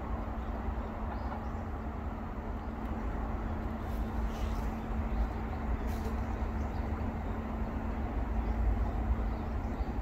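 Steady low rumble of distant traffic with a faint steady hum, and a few faint crackles near the middle.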